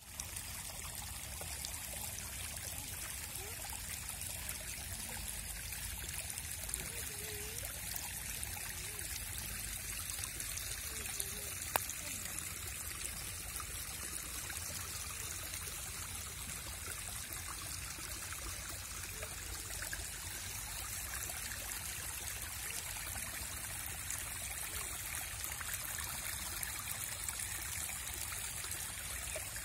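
Rainwater running off after heavy rain, trickling and flowing steadily, with one brief click about twelve seconds in.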